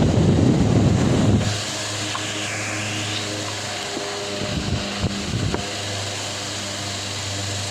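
Delta Gold 50 cm wall fan running: a loud rush of air for about the first second and a half, then a steady electric motor hum with a low buzz.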